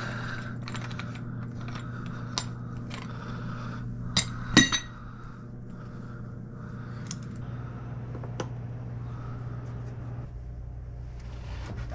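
Metal pipe fittings and tools clinking and tapping as they are handled, a few scattered sharp clicks with the loudest pair about four and a half seconds in, over a steady low hum.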